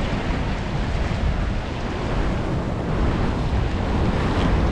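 Surf washing against the rocks, with wind rumbling on the microphone.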